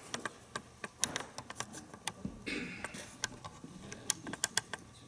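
Typing on a laptop keyboard: irregular, quick key clicks, with a short soft noise about halfway through.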